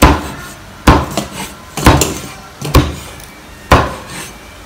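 A steel meat cleaver chopping grilled pork on a wooden cutting board: five sharp chops, about one a second, with lighter knocks between.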